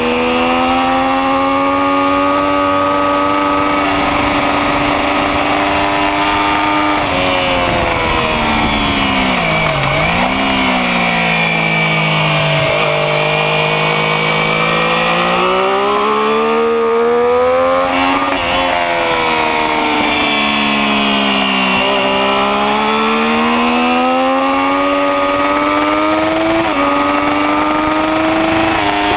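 Sport motorcycle engine running hard on a race track. Its pitch climbs as it speeds up and slides down as it slows for corners, lowest about ten seconds in, with sudden drops at gear changes.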